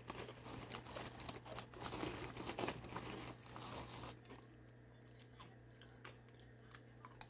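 Crunching of hard kettle-cooked potato chips being chewed: a dense, crackly crunch for about four seconds that thins to a few faint clicks.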